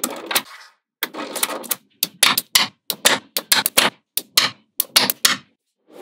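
Small magnetic balls snapping and clicking together in a quick, irregular run of sharp clicks, about twenty of them, stopping a little after five seconds.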